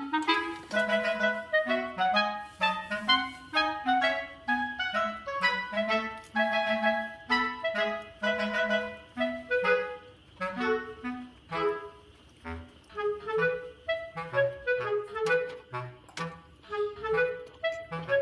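Background music: a lively melody of short notes, joined about halfway through by a bouncing bass line.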